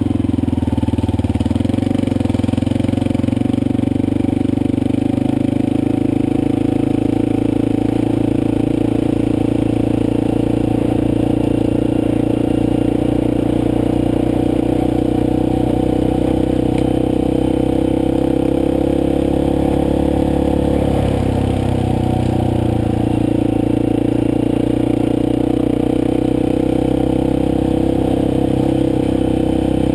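Motorcycle engine running steadily under way at an even pitch. The engine note changes briefly about two-thirds of the way in.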